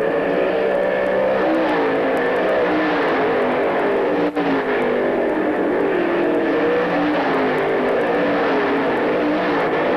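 Several dirt-track race car engines running together at racing speed, their pitches rising and falling and overlapping. There is a brief break in the sound about four seconds in.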